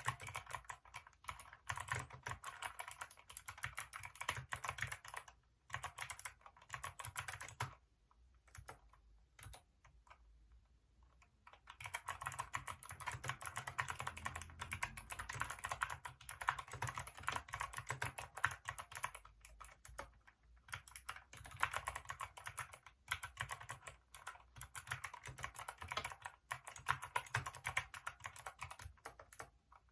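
Fast typing on a Hacker K611 mechanical keyboard with Kailh optical switches: dense runs of key clicks. About eight seconds in the typing thins to a few scattered keystrokes, then picks up again near twelve seconds.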